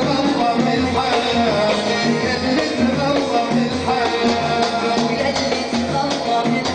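Live Saudi party music: an oud, a keyboard and a hand-percussion troupe playing a steady, evenly repeating rhythm under a wavering melody.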